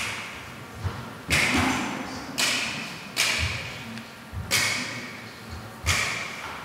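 Five loud thuds, irregularly spaced about a second apart, each trailing off in the long echo of a large hall.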